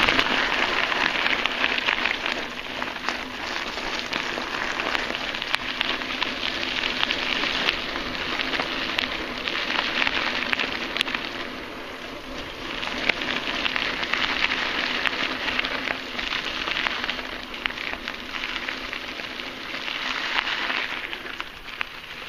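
Mountain bike tyres rolling over a dirt trail covered in dry fallen leaves: a dense noise of many small ticks that swells and fades several times as the bike speeds up and slows.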